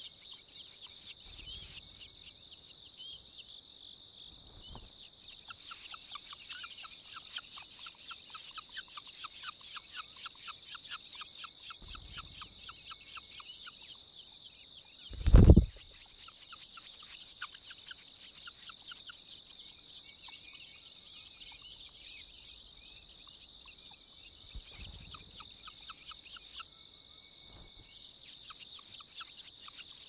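Long-tailed shrike nestlings begging with rapid, repeated high calls. About halfway through there is one loud bump as a parent flies in close to the nest to feed them.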